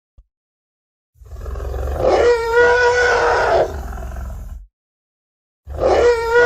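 Dinosaur roar sound effect: a long roar with a deep rumble beneath it, rising to its loudest in the middle, then, after a short silence, the same roar starting again near the end.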